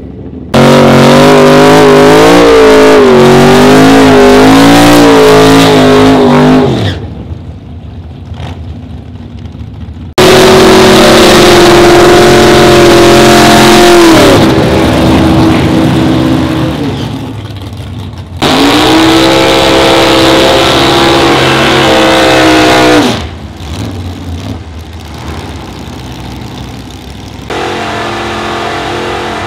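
Drag race cars doing burnouts: a loud engine is held at high revs for several seconds at a time, three times over, each starting abruptly. The pitch wavers in the first and holds steady in the next two, and each ends with the note falling away as the throttle comes off. A quieter engine note comes in near the end.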